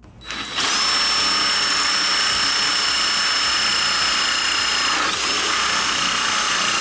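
Cordless drill running steadily under power, with a high motor whine; the whine dips briefly about five seconds in and then picks up again.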